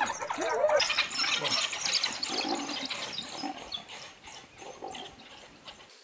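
African wild dogs calling around a kill: a few rising-and-falling whines at the start, then a dense run of high twittering chirps that fades over the last few seconds.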